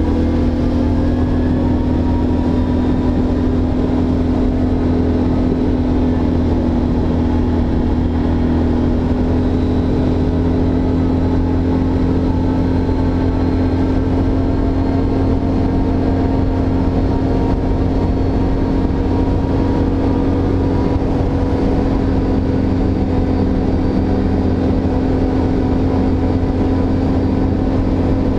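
ATV engine running steadily at trail-cruising speed, its pitch rising a little in the first second and then holding nearly even.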